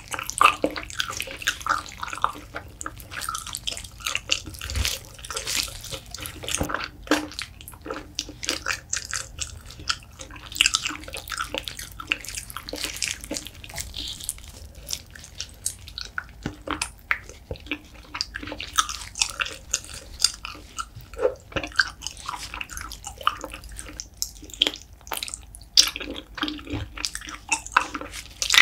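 Gloved fingers squeezing and pulling apart sticky, sauce-coated braised beef feet: wet squelching with many small sticky clicks and crackles, irregular and continuous.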